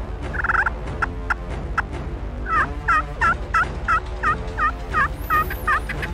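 Turkey pot call (a friction call) worked with a striker: a few short scratchy notes, then a run of about ten evenly spaced hen yelps, about three a second.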